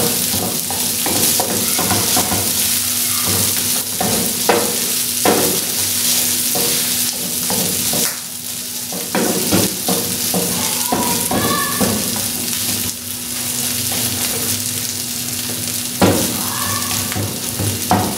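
Minced beef sizzling as it fries in oil on a tawa, stirred and scraped around the pan with a wooden spatula in many short strokes.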